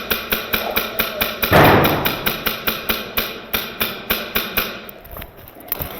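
Airsoft gun firing a rapid, even string of sharp cracks, about five a second, fading away near the end. About a second and a half in comes one louder burst of noise that dies away quickly.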